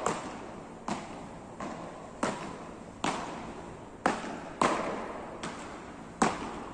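Beach tennis paddles striking the ball in a fast rally: about nine sharp pops at an uneven pace, each trailing a short echo off the hall, the loudest near the end.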